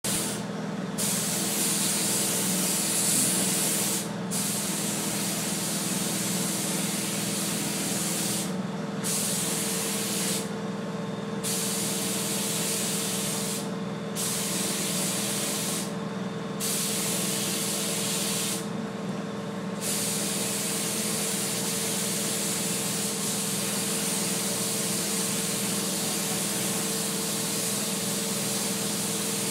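Gravity-feed paint spray gun hissing as it sprays paint. The hiss cuts off briefly about seven times in the first twenty seconds as the trigger is released, then runs steadily. A low steady hum sits underneath.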